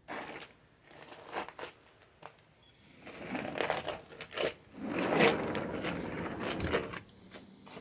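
Rummaging and handling sounds: crinkling rustles with small knocks and clicks, loudest in a long stretch from about three to about seven seconds in.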